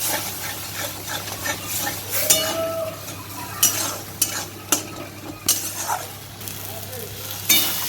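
Spatula stirring and scraping a thick masala paste of onion, tomato, spices and cashew paste as it fries and sizzles in a kadai, with several sharp scrapes against the pan. This is the stage of cooking down the masala in oil until it changes colour.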